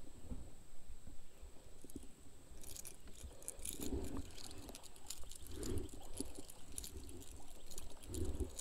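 Close handling noise from hands working fishing line and a crankbait: many small clicks and rustles from about three seconds in, with a few soft thumps.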